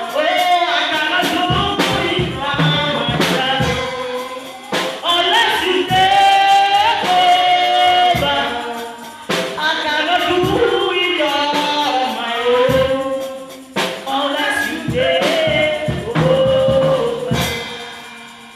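Gospel song sung by a group of men's and women's voices over a steady beat of percussion hits, fading out near the end.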